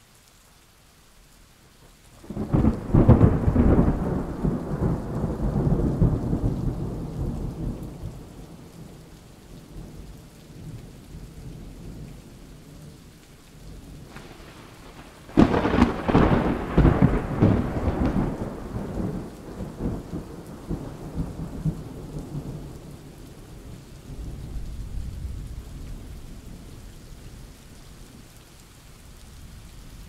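Thunderstorm: heavy rain falling steadily, broken by two loud thunderclaps, one about two seconds in and another about halfway through, each rolling away over several seconds. A fainter rumble of thunder follows near the end.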